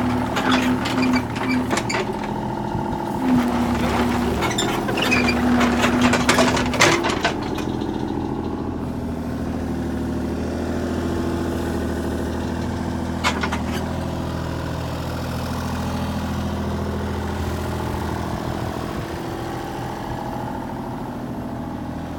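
Kubota U35 compact excavator's diesel engine running. For the first seven seconds a whine comes and goes under load, with repeated metal clanks and clatter from the working machine. It then settles into steady running, with a single clank about thirteen seconds in.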